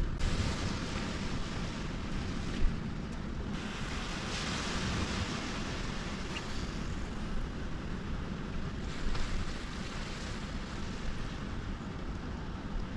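Wind on the microphone over small waves washing onto a sandy beach, a steady rushing noise. One short sharp click sounds a couple of seconds in.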